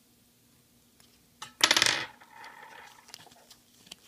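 A small metal object drops and clatters in a quick burst of rattling clicks about a second and a half in, followed by a short fading metallic ring.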